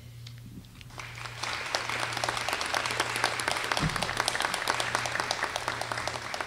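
Applause from a small, spread-out group of people clapping, building up about a second in and carrying on steadily, over a steady low electrical hum.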